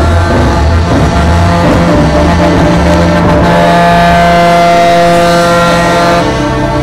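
Semi-truck air horns blasting in loud held chords of several tones that change a few times, over the low rumble of diesel truck engines.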